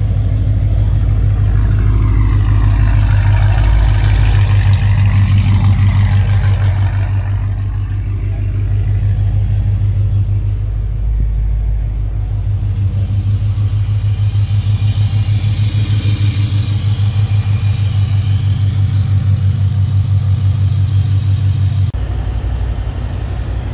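Dodge Charger Scat Pack's 6.4-litre Hemi V8 with long-tube headers idling: a steady, deep, even-pulsed exhaust rumble.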